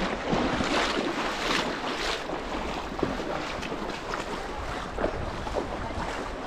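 Shallow, cobble-bedded river water rushing and splashing, with wind buffeting the microphone.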